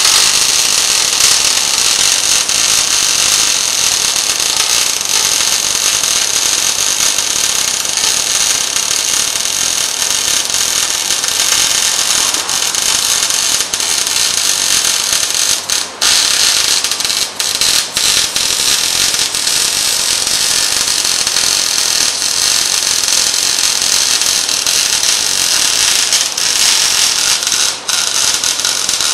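MIG welding arc on steel plate, a continuous steady crackle, broken by a few brief pauses in the arc past the middle and near the end.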